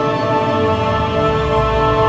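Background music: sustained held chords with a deep bass swell coming in about a second in.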